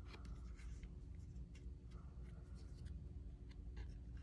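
Faint handling of glossy photocards: light clicks and short scraping sounds as cards slide against one another, over a steady low hum.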